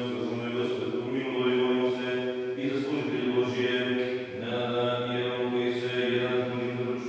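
Orthodox liturgical chant by a male voice, in long held notes that shift pitch a few times, echoing in the church.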